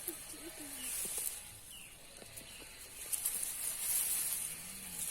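Insects buzzing in the grass: a high, steady hiss that swells about a second in and again around four seconds in, with a few faint chirps.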